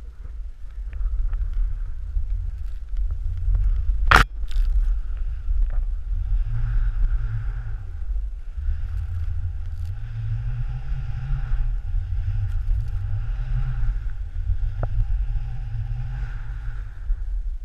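Snowboard sliding and scraping over snow, the hiss swelling and fading with each turn, over a low rumble of wind on the microphone. A sharp knock about four seconds in, and a lighter one near the end.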